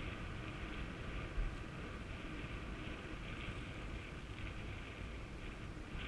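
Wind buffeting the camera's microphone: a steady low rumble with a hiss above it, and a brief thump about a second and a half in.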